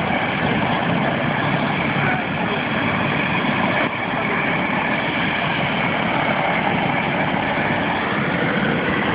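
Medical helicopter running on the ground, a steady engine and rotor noise with a faint whine on top, as it waits to load a patient.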